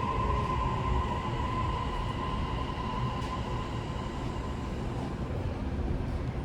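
Toei 6500-series train's Mitsubishi hybrid SiC-VVVF inverter and three-phase induction motors whining with a falling pitch as the train brakes, over a steady rumble of wheels on rail. The whine fades out about three seconds in as the train slows to a stop.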